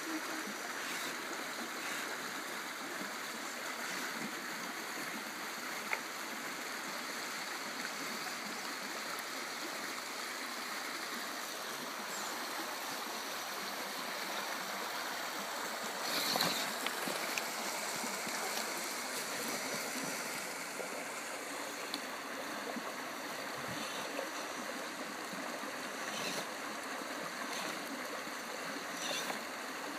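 Steady rushing of a river flowing over rocks, with a few faint clicks and a brief louder swell about sixteen seconds in.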